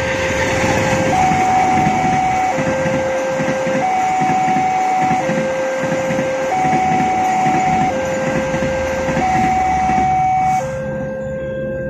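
Electronic railroad crossing alarm sounding two alternating tones, a lower and a higher one, each held for just over a second, over the rumble and clatter of the KA Majapahit passenger train's coaches running across the crossing. The train noise drops away about ten and a half seconds in as the last coach clears, while the alarm keeps sounding.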